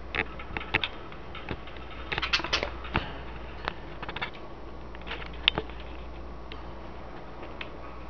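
Caged budgies making scattered short chirps and clicks, densest about two seconds in, over a steady low hum.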